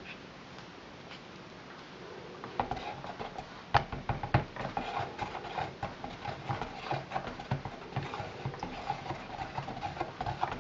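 Stick (immersion) blender starting about two and a half seconds in and running in freshly combined oils and lye solution, bringing the raw soap batter to emulsion. Its steady hum is overlaid with many small clicks and knocks of the blender head against the plastic bowl.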